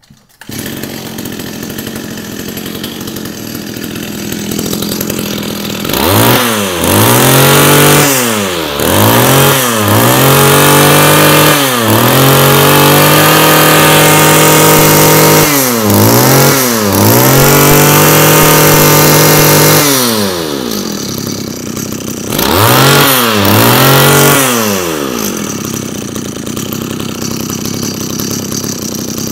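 Komatsu G2K two-stroke brush cutter engine starts about half a second in and idles. It is then revved with the throttle again and again, with one longer high-revving stretch in the middle, and drops back to idle between and after the revs.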